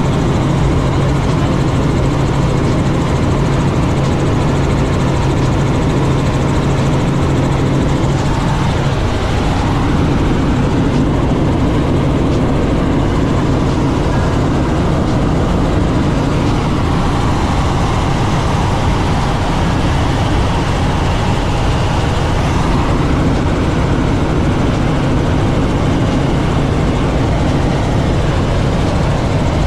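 Helicopter engine and rotor noise heard from inside the cabin during flight: a loud, steady drone with a low hum that eases slightly about nine seconds in.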